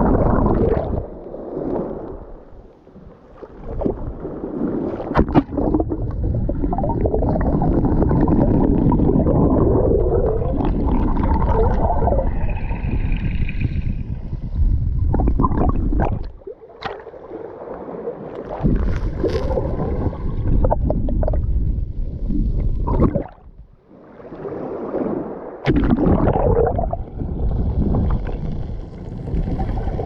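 Small waves of shallow sea water washing over a camera on a pebble beach: muffled gurgling and sloshing as the water covers and uncovers the microphone. There are a few sharp knocks, and the sound drops away briefly three times as a wave pulls back.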